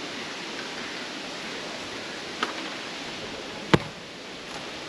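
A steady outdoor hiss, broken by a light knock about two and a half seconds in and a single sharp thud about a second later.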